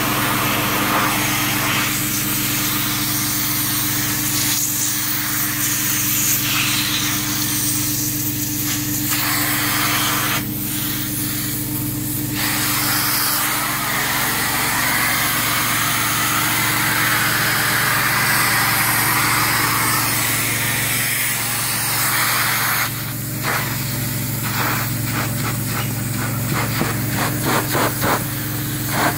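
Steady drone of a truck-mounted carpet-cleaning machine running, with a hand tool rubbing and scrubbing across microfiber upholstery. Near the end the strokes come quick and rhythmic, several a second.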